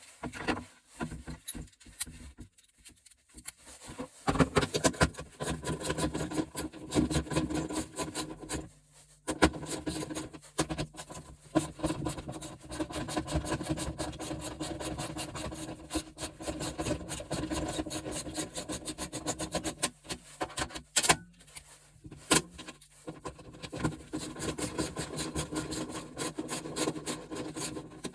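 Hand tools scraping and rubbing on the metal parts of a gas stove being taken apart for scrap, a fast run of scratchy strokes with a few short pauses and one sharp click about two-thirds of the way through.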